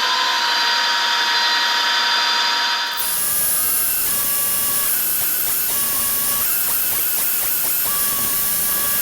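Harrison M250 metal lathe running at high spindle speed with a steady whine. About three seconds in, a rougher cutting noise starts as a drill bit is fed into the steel workpiece, drilling it to depth.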